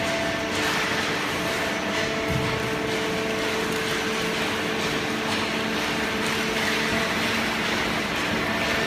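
Hydraulic cardboard baler running: a steady machine hum with a few held tones over even mechanical noise.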